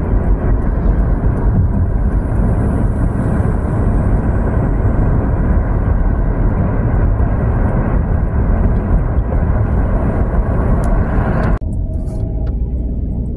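Steady road and wind noise of a car driving at speed, a dense rumble heaviest in the low end. It cuts off abruptly near the end, giving way to a much quieter, slower drive with a few faint steady tones.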